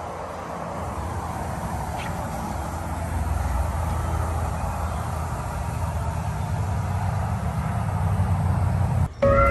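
Steady outdoor background rumble and hiss. Music cuts in right at the end.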